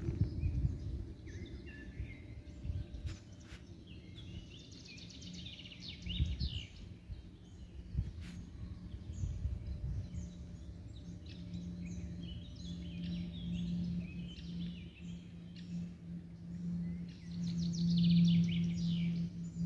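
Songbirds chirping and singing in many short phrases throughout. In the second half a steady low hum grows louder and is the loudest sound near the end.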